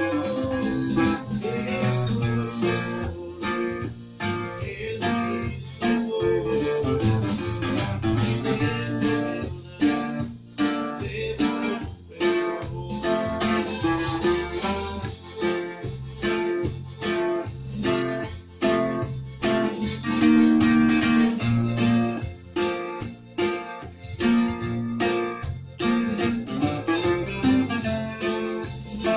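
Bajo quinto, the ten-string Mexican bass guitar, played solo: strummed chords and picked note runs in a steady rhythm, with frequent ornaments.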